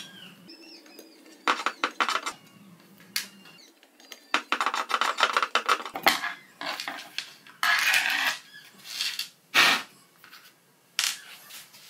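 Screwdriver taking small screws out of a mini lathe's metal saddle: a string of irregular clicks, scrapes and rubbing, with small metal screws clinking onto the wooden workbench. Two longer scrapes come about halfway through and again about two-thirds in.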